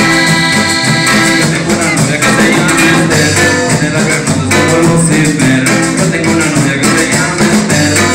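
Live norteño band playing: accordion carrying the melody over guitar, electric bass and drums, with a steady beat and regular bass notes.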